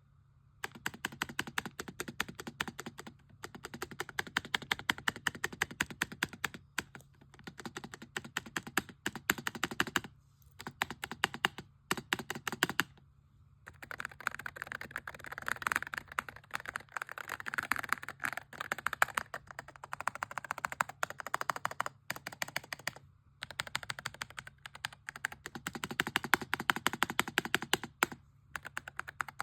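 Typing on a Coolkiller Balloon 84 low-profile mechanical keyboard with linear Ice Blade switches: fast, rapid keystrokes in runs of several seconds, with short breaks between them.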